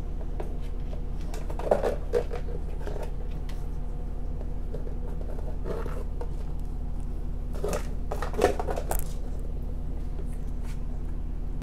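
Beagle nosing and biting at a clear plastic treat container on a tile floor, trying to get a treat out: scattered plastic clicks and knocks, with two sharper knocks, one near the start and one past the middle, over a steady low hum.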